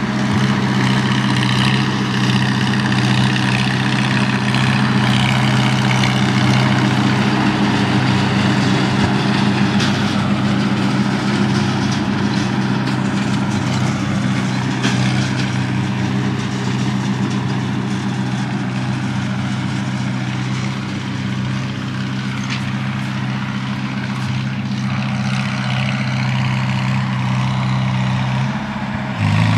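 Farmall H tractor's four-cylinder engine running steadily under load while mowing, a constant low hum with no change in speed.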